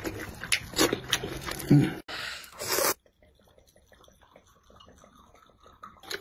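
A metal spoon clicking and scraping on a plate while food is eaten, then a brief hiss about two seconds in. After that, faint swallowing as liquid is drunk straight from a bottle.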